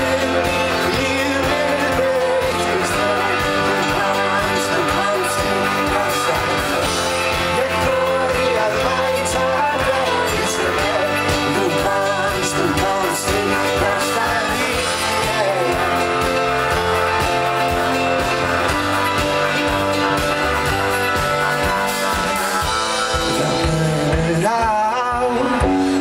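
Live band playing a rock-pop song, with electric guitars, violin and keyboard, and singing, heard from the crowd.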